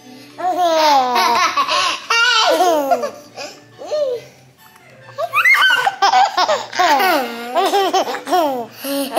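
A baby laughing in high-pitched, squealing bursts, in two long spells with a short lull between them.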